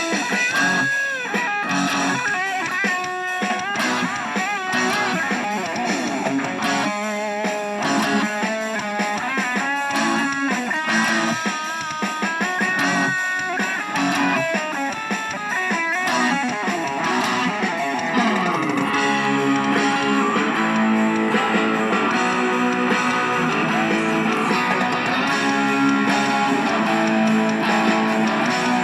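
Music with guitars: a lead guitar melody with bent notes over strummed guitar and bass, settling into a steady repeating strummed pattern about two-thirds of the way through.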